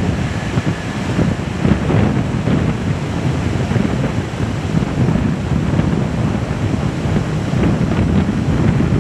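Wind buffeting the microphone: a steady, loud, low rumble, with a faint high whine in the first second or so.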